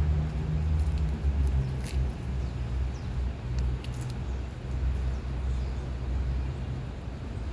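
Steady low rumble of distant city traffic, with a few short high ticks about two and four seconds in.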